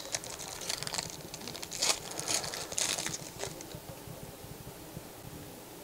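Foil wrapper of a Panini Threads basketball card pack crinkling and crackling as it is torn open by hand, loudest about two and three seconds in, then dying down to a faint rustle as the cards are handled.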